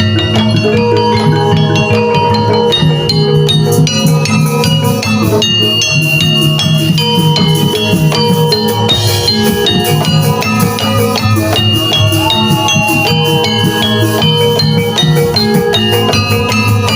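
Javanese gamelan music accompanying a jaranan dance: bronze metallophones ring out a repeating melody over drums and a steady low bass, playing continuously.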